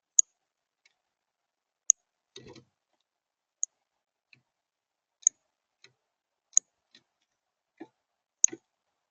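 Sharp, very short chip notes of a songbird at a seed feeder, repeated irregularly about once every second or so. A brief soft rustle comes about two and a half seconds in.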